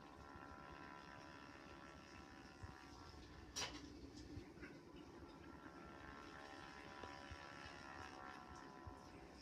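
Near silence, with faint sustained tones from a television's soundtrack and a single sharp click about three and a half seconds in.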